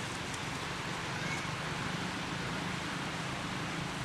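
Steady outdoor background noise with a constant low hum and no distinct events.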